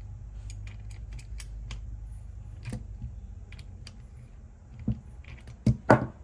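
Light metallic clicks and clinks of small turbo parts and hand tools being handled, with three louder knocks near the end, over a low steady hum.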